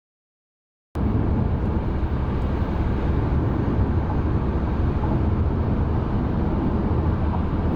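Steady road and engine noise of a car driving, cutting in abruptly about a second in after dead silence.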